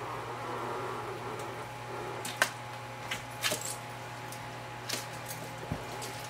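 Wooden honey frame being worked down between the spiked rollers of a roller uncapper, with faint scraping and a few sharp clicks and knocks, over a steady low hum.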